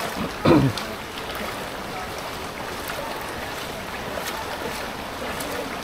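Steady sloshing and splashing of shallow floodwater along a street, as if someone is wading through it. There is one brief, loud sound about half a second in.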